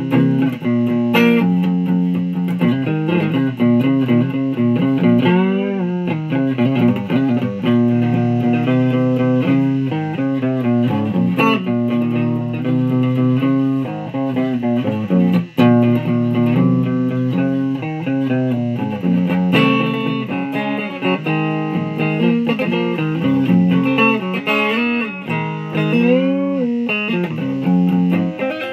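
Electric guitar played through a Fuzz Face fuzz pedal running on a run-down battery: continuous lead lines with sustained, heavily bent notes.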